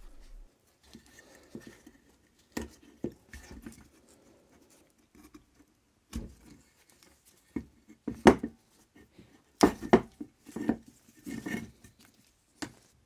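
Irregular clicks, knocks and rubbing as a Triumph TR7 front indicator light cluster is taken apart by hand. The rubber gasket is peeled off the plastic lens, and the metal housing and its wiring are turned over. There are a few louder knocks in the second half.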